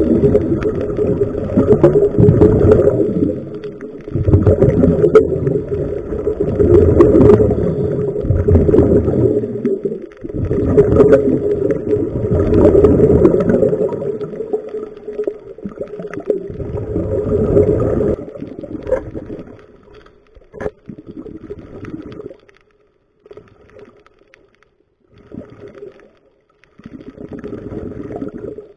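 Scuba divers' exhaled regulator bubbles gurgling past an underwater camera, muffled by the water. They come in bursts of a few seconds, one per breath, loud at first and fainter and more spread out in the second half.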